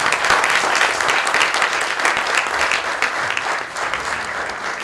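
Theatre audience applauding, a dense run of hand-clapping that eases off a little near the end.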